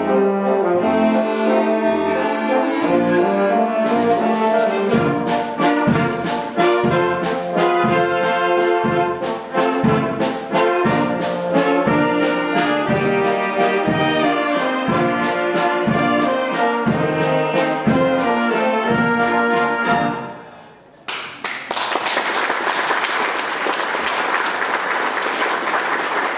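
Wind band with brass to the fore playing a march-like piece with a steady beat, percussion strikes joining about four seconds in. The music stops about twenty seconds in and the audience applauds.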